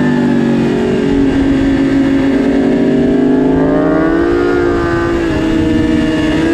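2022 BMW S1000RR's inline-four engine running at high revs under load, its note rising steadily about two seconds in as the throttle opens through the corner, with wind rush on the microphone.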